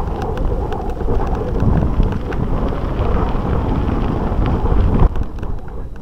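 Wind rumbling on the microphone, mixed with tyre noise and light clicking rattles from a mountain bike riding a dirt track. The rumble eases about five seconds in.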